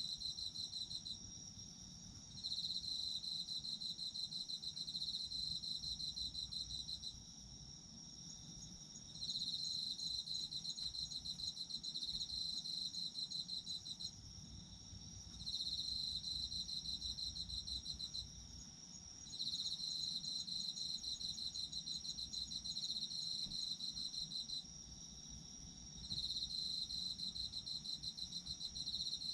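Autumn insects calling, crickets: one holds a steady, unbroken high trill while another sings a slightly lower pulsed trill in bouts of about four to five seconds, each followed by a short pause, five times over.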